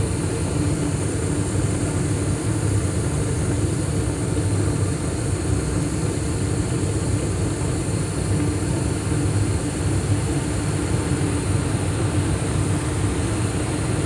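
Carrier Infinity 80 (58CVA) two-stage gas furnace firing on high-stage heat: three burners lit and the two-speed draft inducer motor running on high. A steady, even hum with a rush of burning gas, during the burner warm-up before the circulating blower comes on.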